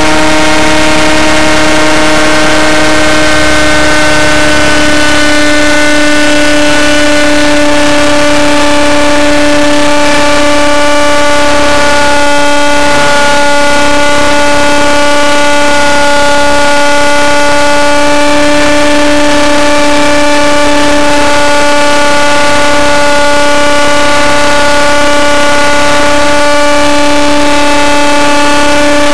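Radio-controlled helicopter's engine running at flight speed: a loud, steady, high-pitched whine that sags slightly in pitch over the first few seconds.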